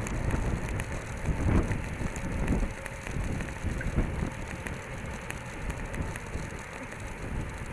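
Road bicycles riding in a racing bunch, heard from a camera on one of the bikes: wind rushing over the microphone and tyre and road rumble that swells and fades, with scattered light clicks.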